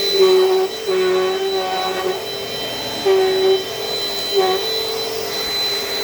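Dirt Devil Dynamite Plus vacuum cleaner running with a steady motor whine. Its pitch dips and the sound swells four times as it is worked over the carpet.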